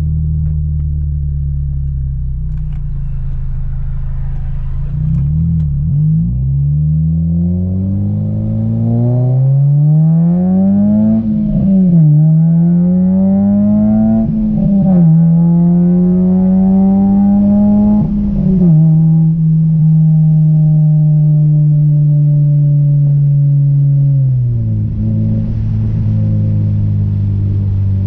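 Honda Civic four-cylinder engine through an Invidia cat-back exhaust and aftermarket downpipe, accelerating through the gears. The pitch climbs and drops sharply at two shifts, then holds steady at cruise before easing off to a lower, steady note about 24 seconds in.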